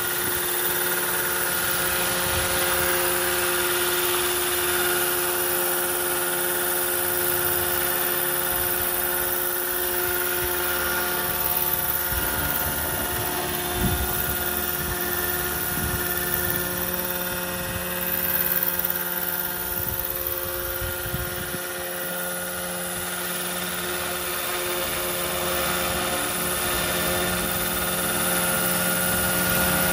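Electric 800-size Roban EC145 scale RC helicopter hovering: a steady, high motor and gear whine over the rotor blades' noise. There are low rumbles in the middle stretch.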